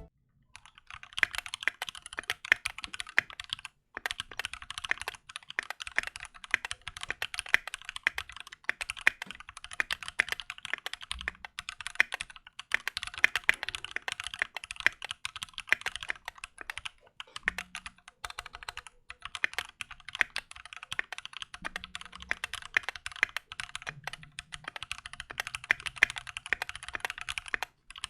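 Keychron Q2 mechanical keyboard being typed on at a steady fast pace, a dense run of key clicks with a few short pauses and occasional deeper thuds.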